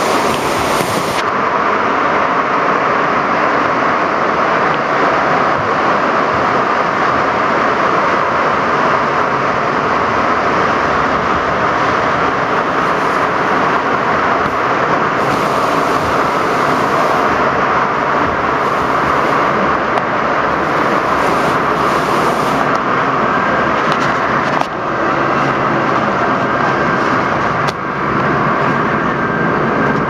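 Steady, loud rush of churning white water around a rapids-ride raft, dipping briefly twice near the end.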